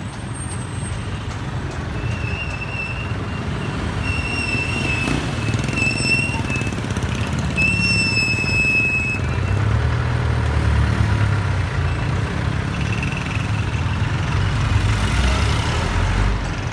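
Street traffic: motorcycles, motorcycle-sidecar tricycles and jeepneys pass with their engines running, and a heavier engine rumble swells about ten seconds in. Several short high-pitched squeals come in the first half, the longest about eight seconds in.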